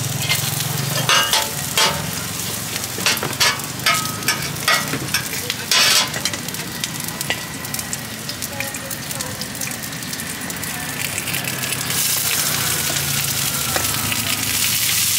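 Hot oil sizzling in a large iron wok, with a run of sharp metal clinks and clanks from the utensils, pan and pots over the first six seconds. The sizzling grows louder about twelve seconds in.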